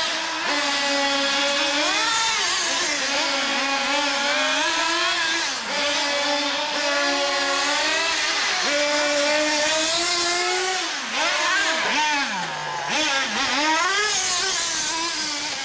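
Small two-stroke nitro engines of HPI MT2 radio-controlled monster trucks, revving up and dropping back again and again as the trucks are driven around the track. The high-pitched engine note climbs and falls every second or two and dips sharply a few times near the end.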